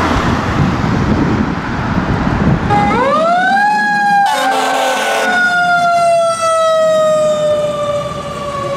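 Road traffic noise, then about three seconds in a fire truck siren winds up quickly and its wail slowly falls away in pitch. A one-second horn blast comes about a second after the siren starts.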